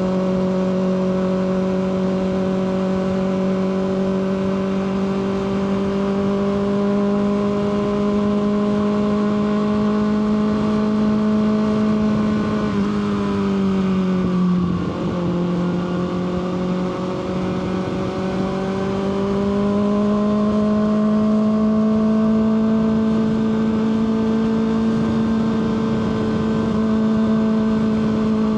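Kawasaki ZX6R 636 inline-four engine running at steady cruising revs. Its pitch slowly climbs, drops off about halfway through as the throttle eases, then builds back up and holds.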